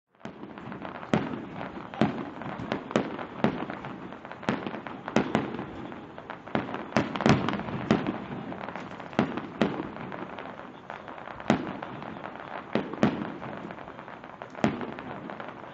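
Aerial fireworks bursting overhead in quick, irregular succession: a string of sharp bangs, one or two a second, with a steady wash of noise between them.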